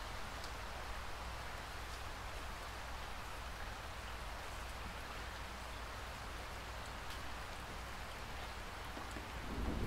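Steady rain falling, an even hiss with faint individual drop ticks. Near the end a low rumble begins to rise: the start of a roll of thunder.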